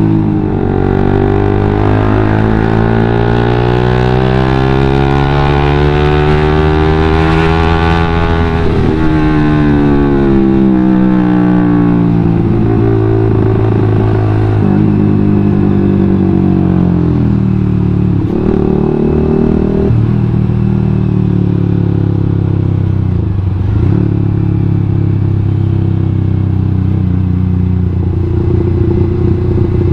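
Suzuki GSX-R150's single-cylinder engine running through a WRX GP5K1 aftermarket full-system exhaust while riding. The engine note climbs steadily for about eight seconds and falls away. It then drops and picks up again several times as the throttle is closed and reopened.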